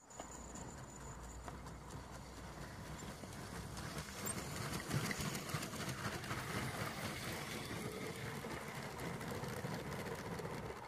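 Motorised Lego train rolling past on plastic Lego track: a steady rattling rumble with dense, fast clicking of the wheels over the track, loudest about halfway through.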